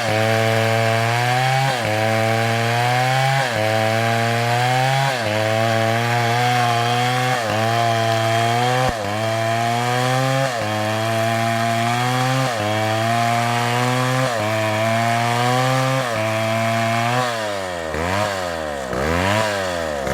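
Chainsaw cutting wood, its engine pitch sagging under load and jumping back up in a repeating cycle about every second and a half to two seconds. Near the end it is revved up and down several times in quick succession.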